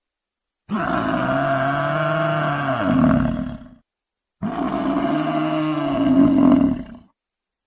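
A large animal calling twice: two long, low calls of about three seconds each, with a short pause between them.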